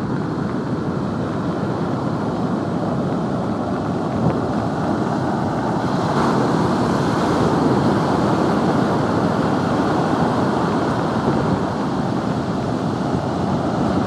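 Rough storm surf from an approaching typhoon breaking and washing up a sandy beach, a continuous rushing noise that swells a little around the middle. Wind buffets the microphone.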